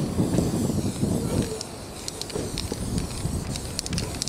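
Short hissing bursts from an aerosol spray-paint can over a low, uneven background rumble.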